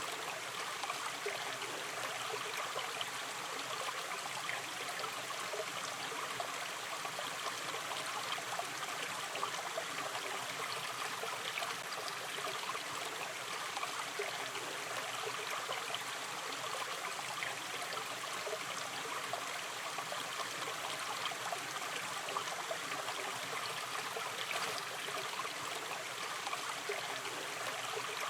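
Shallow river stream running gently: a steady, even babble and trickle of water over stones.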